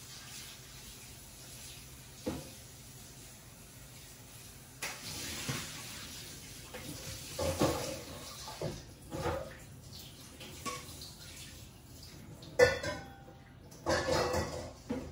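Water running and splashing as salted vegetables are rinsed at a sink, starting about a third of the way in, with clinks and knocks of dishes and utensils. The sharpest knock comes near the end.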